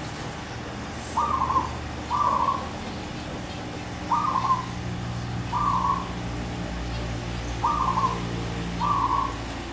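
Zebra dove cooing: six short, clear coos, each under half a second, in loose pairs spaced about a second or two apart. A low steady hum runs underneath.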